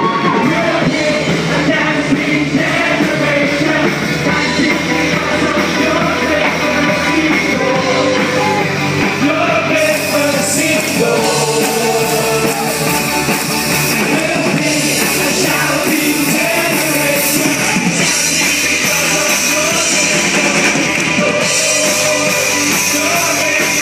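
Live band playing an upbeat rock-style worship song with a lead singer, loud and steady; the sound grows brighter about ten seconds in.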